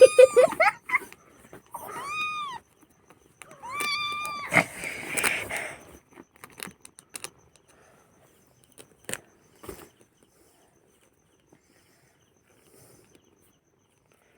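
Kitten mewing: three high, arching mews in the first four seconds or so, followed by a short noisy rustle and a couple of brief clicks.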